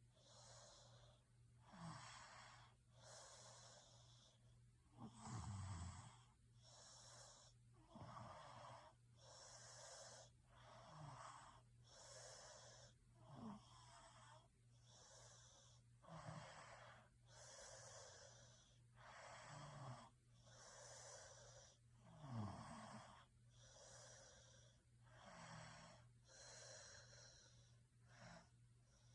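A sleeping person snoring faintly: an even train of breathy snores with a short low rasping snort roughly every two to three seconds. A steady low hum runs underneath.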